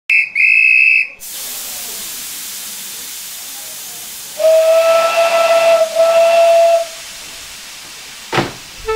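A guard's whistle gives a shrill blast of about a second, with a tiny break near its start. Steam hisses steadily from the tank engine. About four seconds in, the steam locomotive's whistle answers with a lower tone in two blasts, the first longer, and a single knock comes near the end.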